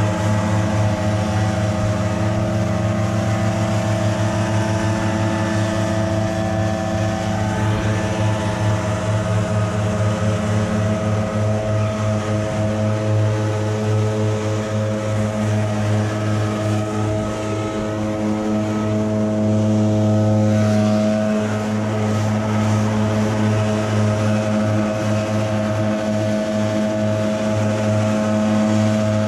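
Several gas backpack leaf blowers running together at high throttle: a steady, loud engine drone from more than one engine at slightly different pitches, with the rush of blown air over it.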